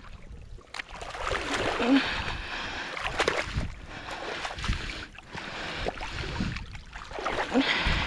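Wading through a shallow creek: irregular splashing and sloshing of water around the legs as a person steps about in it.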